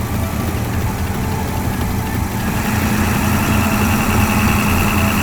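Large engine of a heavy machine or truck running steadily, with a steady whine joining about two and a half seconds in.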